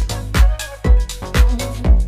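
Background music with a steady beat, a kick drum about twice a second.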